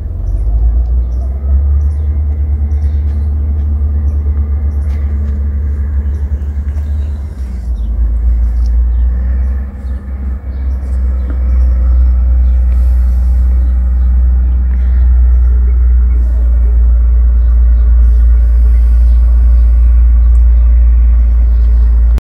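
A loud, steady low rumble, dipping briefly twice near the middle.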